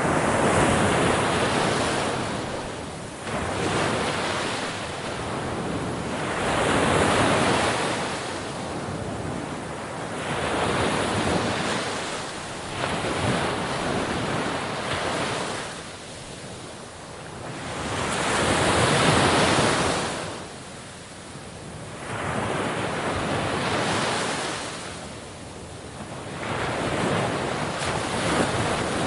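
Sea waves breaking on a shore, each surge swelling and washing back every few seconds, with some wind noise on the microphone.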